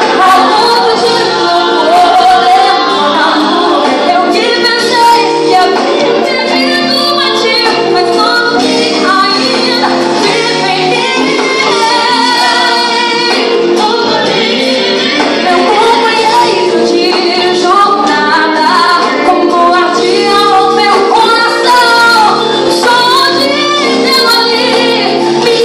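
Woman singing a Christian worship song live, backed by a band, with her melodic vocal line over sustained accompaniment.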